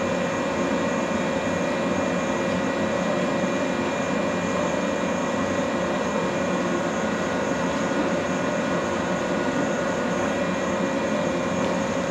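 Steady hum and whine from a stationary electric train's onboard equipment, running without change.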